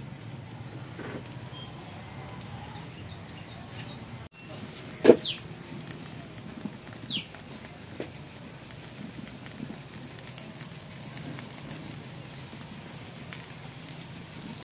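Wood fire smouldering in a clay tandoor, with faint scattered crackles. About five seconds in comes a loud sharp sound with a fast falling whistle-like glide, and a second, shorter falling glide follows near seven seconds.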